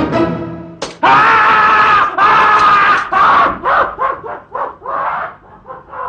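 A sharp snap, then a person screaming: loud drawn-out cries that break into shorter, fading yells toward the end.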